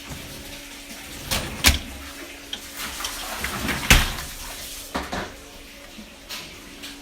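Dishes clattering and knocking as they are handled, several separate sharp clinks and knocks, the loudest about two and four seconds in, over a steady faint hum.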